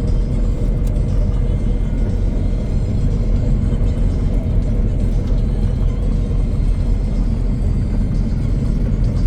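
Engine of a mowing machine running steadily at a constant speed while mowing, with no change in pace.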